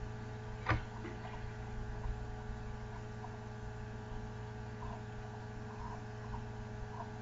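Steady electrical hum in the recording, with one sharp click about a second in and a few faint ticks after it.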